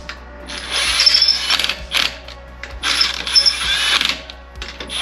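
Power tool running lug nuts onto a car's wheel in three bursts of about a second each, with rapid clicking and a motor whine.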